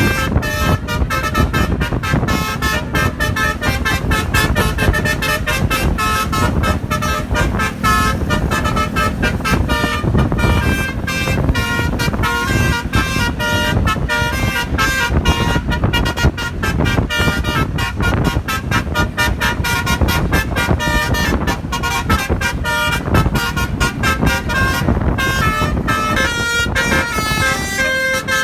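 Basuri musical air horn on a truck, driven by a DAV tone module, playing a fast tune of short, quickly changing notes without a break, over the rumble of the running truck.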